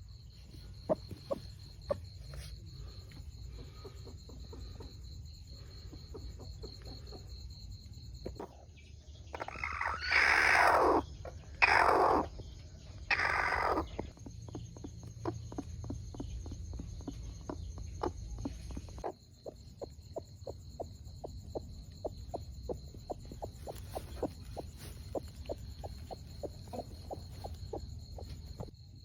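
Chickens: short soft clucks throughout, and a run of three loud, harsh calls about a second each, close together about a third of the way in.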